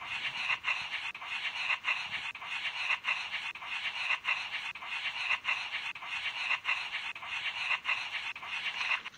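Slime being squeezed and worked by hand: a dense crackling, squishing hiss that starts abruptly and pulses in and out a little under twice a second.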